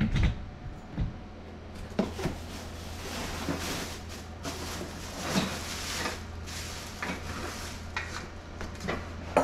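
Plastic packaging crinkling and rustling as it is pulled about inside a cardboard box, in irregular swells, with a few sharp knocks of the box.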